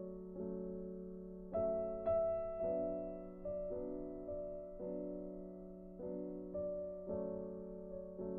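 Background piano music: soft chords struck every half second to a second, each ringing and fading before the next.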